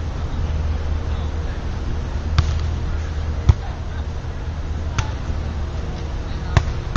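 Hands and forearms striking a beach volleyball four times in a rally, each contact a sharp slap, the second one the loudest, over a steady low rumble.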